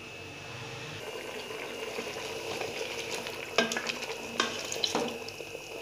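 Beef trotters sizzling in their own rendered fat in an aluminium pressure cooker while a wooden spoon stirs them: the bhunai, frying down the pressure-cooked meat. A few knocks of the spoon against the pot come near the end.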